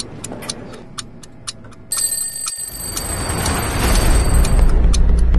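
Edited suspense soundtrack: a steady clock-like ticking, about four ticks a second. About two seconds in, a high ringing tone and a rising whoosh swell into a deep low drone.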